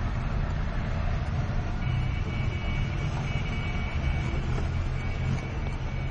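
Steady rumble of roadside traffic, with a high steady tone, such as a horn or brake squeal, held for about two and a half seconds from about two seconds in.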